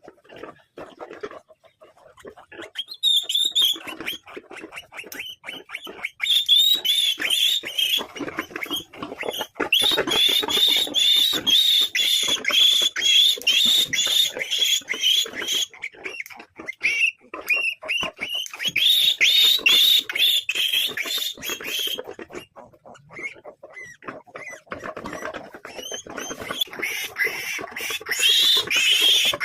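A three-day-old piglet squealing in distress as it is held and processed, with shrill, rapidly repeated screams. They begin a few seconds in, pause briefly a little past twenty seconds and resume near the end.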